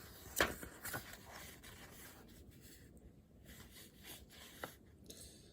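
Faint scratching strokes and a few sharp taps from handling things at a desk, the loudest tap about half a second in.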